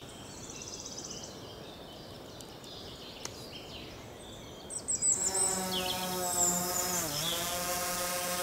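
Birds chirping over faint handling clicks, then about five seconds in a quadcopter drone's motors start up and hum steadily, louder, at one pitch that dips briefly once.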